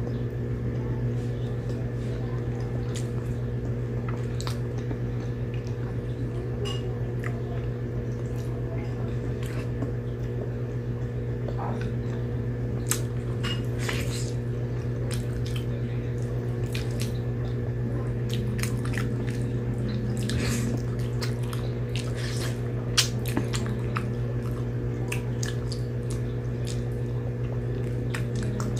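Close-up eating sounds: wet chewing, lip smacks and squishy mouth clicks as a person bites and chews food held in her fingers, over a steady low hum.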